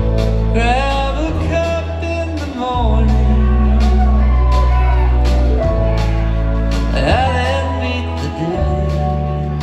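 Live acoustic string band playing a song: acoustic guitar, fiddle, upright bass and drums, with deep bass notes changing every second or two. A melody line slides up into long held notes near the start and again about seven seconds in.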